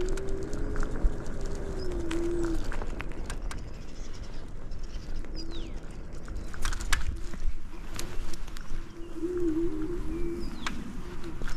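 Electric kick scooter rolling along a suburban street: steady wind and tyre rumble with frequent small clicks and rattles from the ride. A low tone rises and falls near the start and wavers again about nine seconds in, and a few faint high chirps come through.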